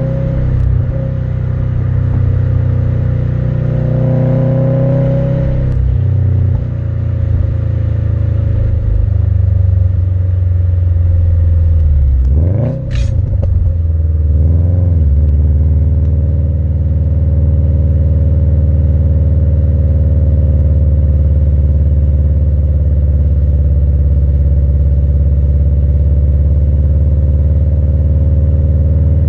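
Subaru WRX STI's turbocharged flat-four heard at the tips of an Invidia Q300 cat-back exhaust while driving. The note rises and falls for the first few seconds, dips briefly and sweeps back up about thirteen seconds in, then settles into a steady drone for the rest.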